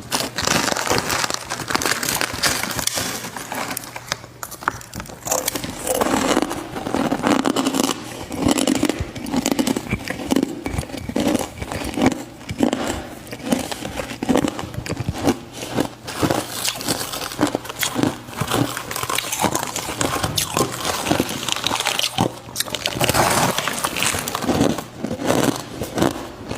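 Ice being chewed close to the microphone: dense, irregular crunching and cracking with frequent sharp snaps as the pieces break between the teeth.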